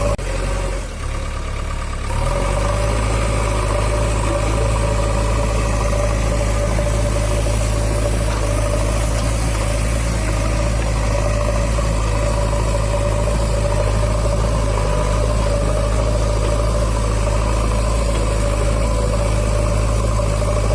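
A steady engine idling sound with a constant low hum. It drops briefly just after the start and comes back unchanged at about two seconds.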